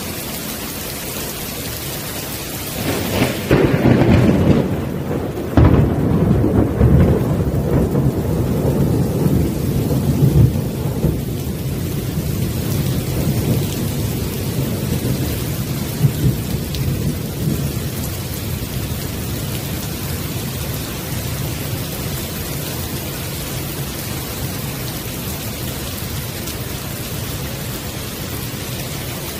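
Heavy rain falling steadily on a wooden deck and trees. A roll of thunder builds about three seconds in, with a sharp crack a couple of seconds later, then rumbles on and slowly fades.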